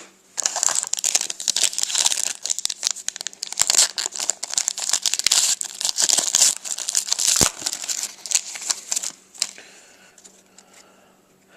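Foil trading-card pack wrapper being torn open and crinkled by hand, a dense crackling that dies down to faint rustles about nine seconds in.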